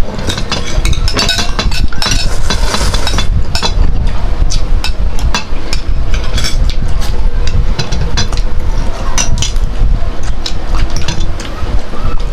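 Close-up eating and tableware sounds: frequent sharp clicks and clinks of utensils against a bowl or dish, over a loud low rumble.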